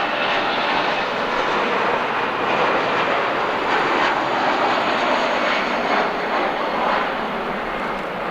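Airbus A340-313 taking off, its four CFM56 jet engines at takeoff thrust making a loud, steady rushing noise that eases slightly near the end.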